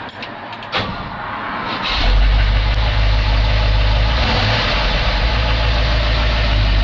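A 1973 Ford F-250's 360 V8 starts about two seconds in and runs at a loud, steady idle. It has upper engine noise and sounds like a diesel, which the owner puts down to the oil pump not pumping enough.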